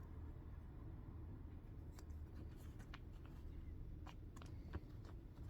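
Faint rubbing and scattered light clicks of a wet wipe being worked over a phone's glass screen and the phone being handled, over a low steady room hum.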